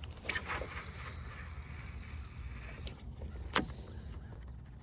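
A cast with a fishing reel: the spool spins out as the line pays off, a high hiss of about two and a half seconds that stops abruptly, followed by a single sharp click about a second later.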